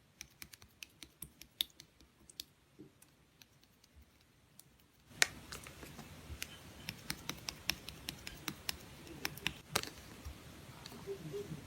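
Slime being poked and pressed by hand, giving scattered sharp sticky clicks and small pops. About five seconds in the handling gets busier, with a rustly background and more frequent clicks.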